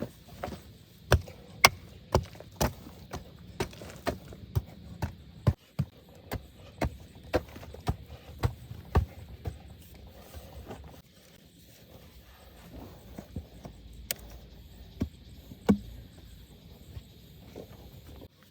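A series of sharp knocks, about two a second, thinning out and growing fainter after about ten seconds.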